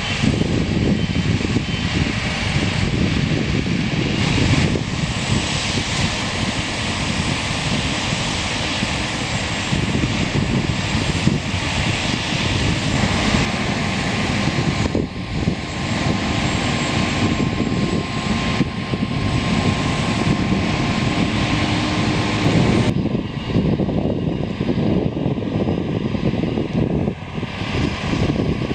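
Combine harvester running steadily at work in standing corn, a loud dense engine and machinery roar. About 23 seconds in the sound changes abruptly and loses much of its hiss.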